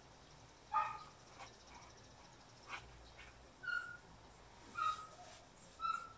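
An animal giving short, high calls, about four of them spaced roughly a second apart, starting about a second in, with a couple of faint clicks between.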